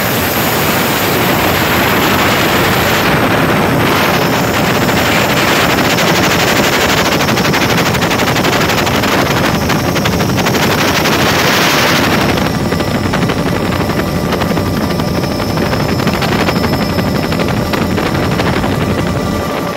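Bell OH-58 helicopter's turbine engine and two-bladed main rotor running loud and steady, with a rapid rotor beat, heard from inside the cabin as it hover-taxis and lifts off. A bright hiss drops away about twelve seconds in.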